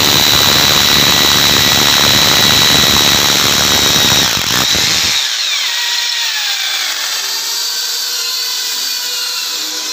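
Corded hammer drill boring a masonry bit into a stair step with a loud, rattling grind. About five seconds in the bit comes free of the hole and the motor's whine falls in pitch as it slows.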